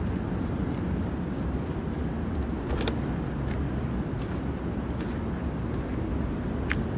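Steady low rumbling background noise, with a couple of faint clicks about three seconds in and near the end.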